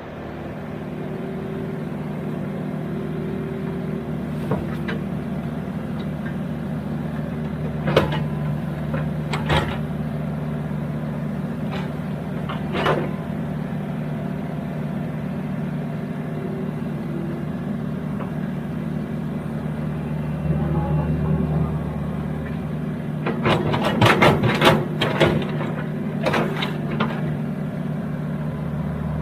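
Excavator engine running steadily, with several sharp knocks and clanks from the working machine, a tight cluster of them near the end.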